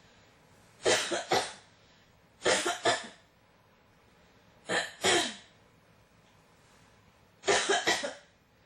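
A person coughing in four short bouts of two or three coughs each, about two seconds apart.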